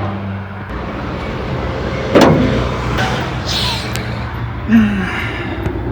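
Chevrolet Chevette engine idling steadily, with a single sharp clunk about two seconds in.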